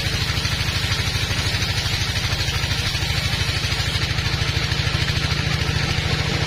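Sawmill band saw running and sawing through a teak log: a steady machine drone with a fast, even pulse and a hiss above it.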